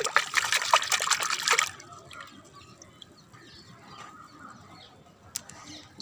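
Water splashing and sloshing as a hand swishes through a plastic bucket of soapy water. The splashing is loud for about the first second and a half, then gives way to faint sounds with a single sharp click near the end.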